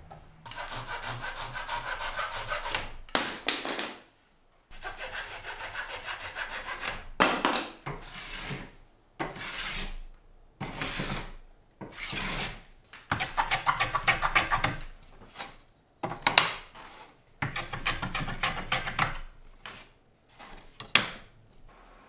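Small hand plane shaving the edges of thin wooden kayak ribs: a series of about a dozen strokes of uneven length, each a rasping scrape with a fine chatter, separated by short pauses.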